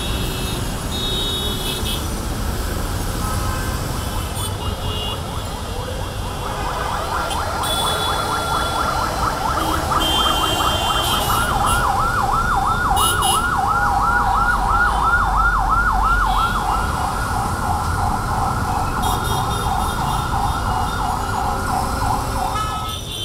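City road traffic noise. About six seconds in, an emergency vehicle's siren starts: a fast yelp rising and falling about three times a second. It carries on until just before the end.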